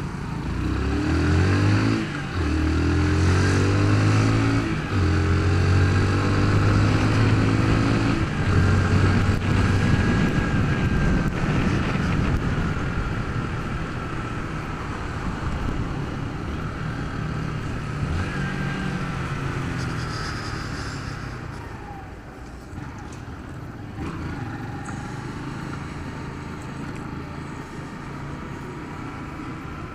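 Honda CG 150 Fan single-cylinder four-stroke motorcycle engine pulling away and accelerating through the gears, rising in pitch with three brief breaks for the shifts in the first ten seconds. It then runs on more steadily and eases off at street speed.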